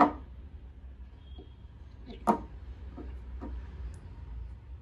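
Magnetic cap of a perfume bottle clicking against the bottle twice, once at the start and again a little over two seconds in, with a few faint handling knocks between.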